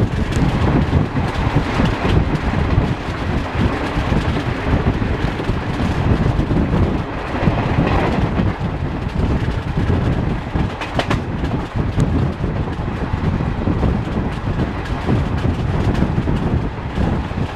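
Wind buffeting the microphone held out at the side of a moving passenger train, over the running noise of the coach on the rails. It is a loud, steady, gusty rumble throughout.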